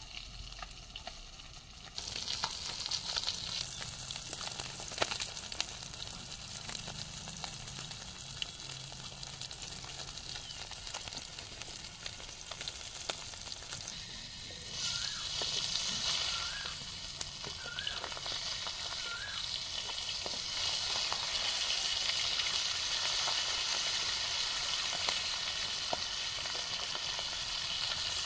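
Food sizzling as it fries in hot oil in a pan. The sizzle jumps louder about two seconds in, as something goes into the oil, and grows louder again about halfway through.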